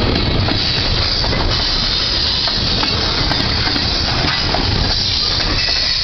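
Freight train tank cars rolling past close by: steel wheels on rail in a loud, steady rumble, with many sharp clanks and rattles.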